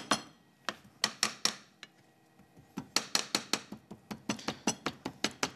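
Kitchen knife chopping soy-marinated tuna into a coarse paste on a cutting board, the blade tapping sharply on the board. A handful of taps come in the first second and a half, then a short pause, then a quick steady run of about five taps a second.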